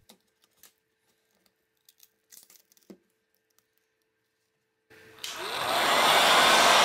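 A few faint clicks, then about five seconds in a heat gun switches on: its fan rises in pitch as it spins up and settles into a loud, steady rush of hot air blown onto the phone's screen.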